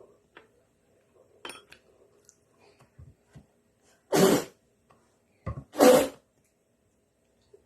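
A person coughs twice, two short, loud coughs about a second and a half apart, with a few faint mouth clicks before them.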